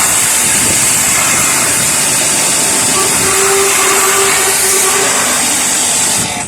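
Water jet spraying onto the coil of a split air conditioner's outdoor condenser unit, washing out caked dirt and salt deposits: a loud, steady hiss that cuts off about six seconds in.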